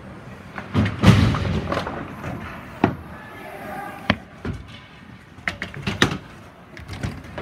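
Ice hockey play at close range along the boards: sticks clacking, and puck and players knocking against the boards, in a run of sharp knocks and clacks. The loudest comes about a second in, followed by a brief scraping hiss like skates on the ice.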